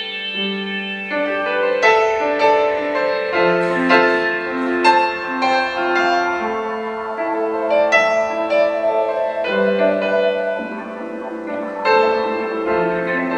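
Kawai grand piano played live: slow, ringing notes and chords, some held long, with freshly struck notes every second or two.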